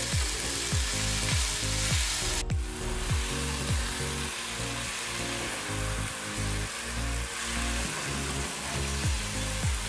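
Chopped onions and tomatoes sizzling in ghee in a pan as they are stirred with a wooden spatula and cooked down on low heat towards a paste. Background music with a steady beat plays along, and the sound briefly cuts out about two and a half seconds in.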